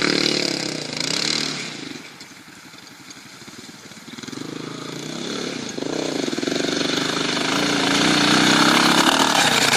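Off-road buggy engine running with the revs rising and falling; it drops away about two seconds in, then builds back up and is loudest near the end.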